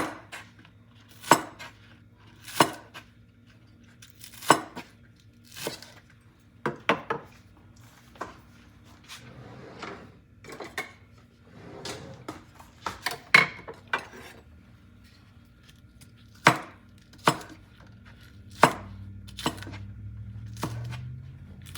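Knife chopping raw chicken wings and feet into large pieces on a cutting board: single sharp chops about a second apart, with a short pause near the middle.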